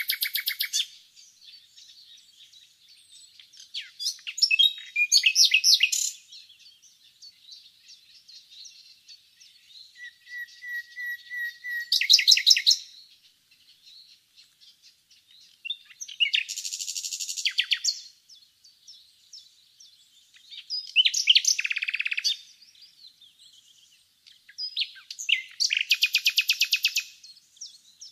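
Common nightingale singing: short, loud phrases of fast trills and whistles, each a second or two long, with pauses of a few seconds between them. About halfway through, one phrase opens with a run of repeated whistles that grow louder before breaking into a rapid trill.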